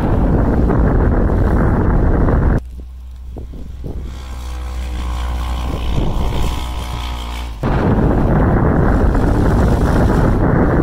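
Wind buffeting the onboard microphone of a Polaris RZR 900 S side-by-side as it drives through snow. For about five seconds in the middle, the side-by-side's engine is heard from a distance, revving and rising steadily in pitch as it ploughs through the snow, before the wind returns.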